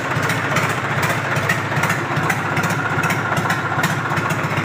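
Freshly rebuilt Swaraj 855 tractor's three-cylinder diesel engine idling steadily.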